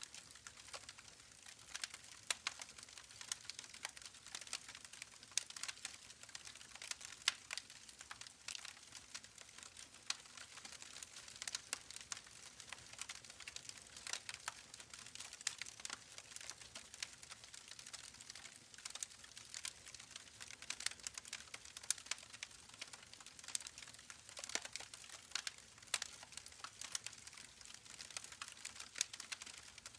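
Wood campfire crackling: a steady stream of irregular sharp pops and snaps over a faint, even hiss.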